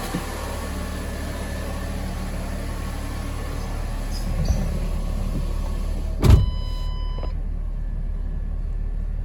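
Ford Fiesta engine idling with the air-conditioning compressor engaged, making the steady grinding noise that the owner compares to a sugar mill milling; its cause is unknown to him. About six seconds in, a car door shuts with a loud thump, and afterwards the running car sounds muffled, as from inside the cabin.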